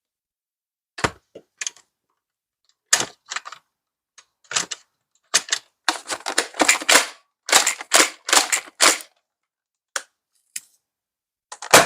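Modded Nerf Rival Takedown pump-action foam-ball blaster being primed and dry-fired over and over to check for leftover balls: a series of sharp plastic clacks and spring snaps, a few spaced ones at first, then a quick run of them in the middle.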